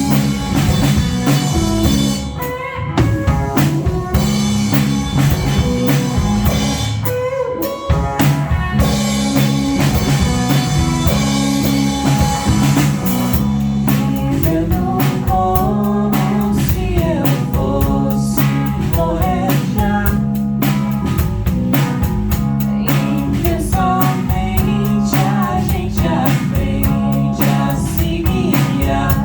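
Live band playing a song on drum kit and guitar, with a melody line of bending notes coming in about halfway.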